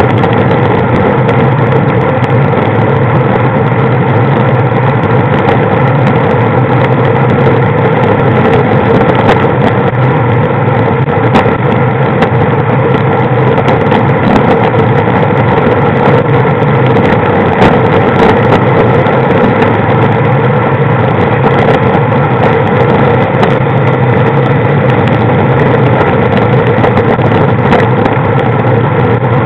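Engine of the vehicle carrying the camera running steadily at cruising speed, with road and wind noise. The pitch stays even throughout.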